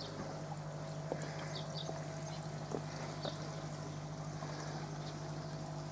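Koi pond water trickling over a steady low hum, with a few faint clicks.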